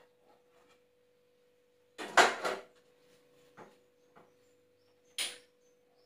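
Kitchenware clattering: a cluster of knocks and scrapes about two seconds in, the loudest part, then single knocks at about three and a half and five seconds, over a faint steady tone.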